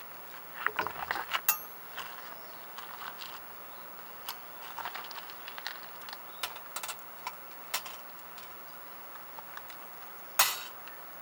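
Softwood campfire crackling: scattered, irregular small pops and ticks, with a cluster of louder snaps about a second in and one loud sharp crack near the end.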